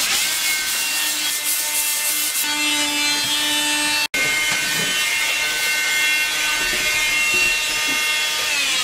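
An electric power tool running steadily on wood and epoxy, a steady motor tone under a grinding, rubbing hiss. It cuts out for an instant about four seconds in.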